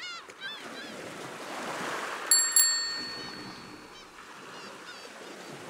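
Bicycle bell rung twice in quick succession, ringing on briefly, over a steady wash of ocean waves, with bird calls at the start and again about four seconds in.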